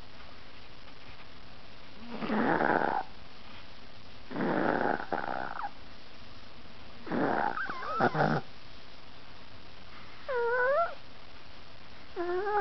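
Chihuahua snoring in its sleep, one snore about every two and a half seconds, five in all. The last two carry a wavering whistle-like pitch.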